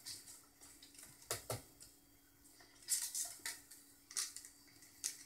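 Plastic cable clips and ribbon cables being handled and clipped into place inside a Yamaha LS9 digital mixer: a handful of light, sharp clicks and clinks, scattered irregularly.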